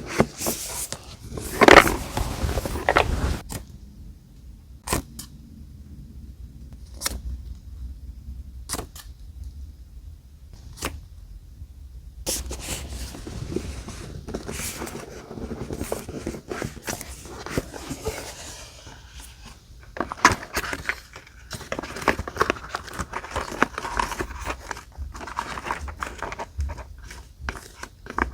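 Paper die-cuts and journal pages being handled: loud rustling and crinkling for the first three seconds, then scattered sharp taps and clicks, then steady rustling and scraping of paper from about twelve seconds in.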